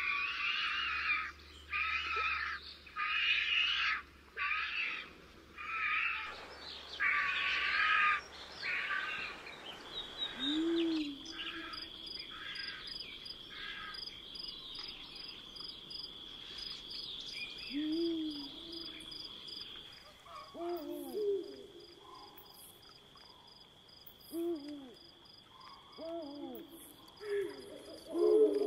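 Woodland wildlife sounds. For the first ten seconds a songbird chirps in short phrases about once a second. After that a steady high insect trill runs on, and a low owl-like hoot sounds every few seconds, several times.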